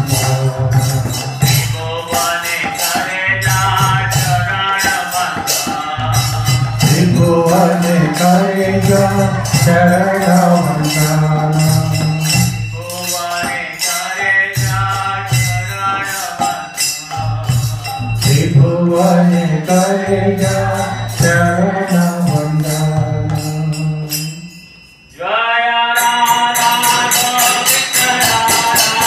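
Devotional bhajan led by a man's singing voice, with a steady jingling beat of hand cymbals. The music falls away briefly about 25 seconds in, then comes back in with the voice and cymbals.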